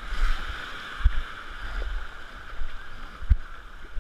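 Shallow ocean surf washing in at the waterline, a steady hiss of breaking foam and moving water. A few low thumps come through it, about a second in and again past three seconds.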